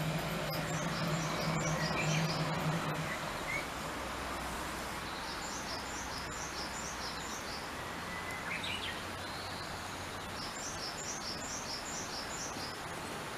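A small bird singing outdoors: a phrase of quick high notes repeated three times, a few seconds apart, over steady background noise. A low steady hum fades out about three seconds in.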